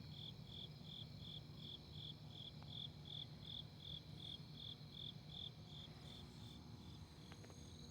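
Crickets chirping at night: short, high chirps in an even rhythm of about three a second, growing fainter near the end, over a faint low hum.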